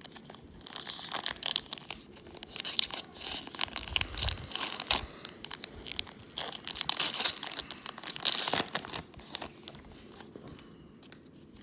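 Wrapper of a 2019 Allen & Ginter baseball card pack being torn open and crinkled, in irregular bursts of crackling that are loudest about seven to nine seconds in. A dull thump comes about four seconds in.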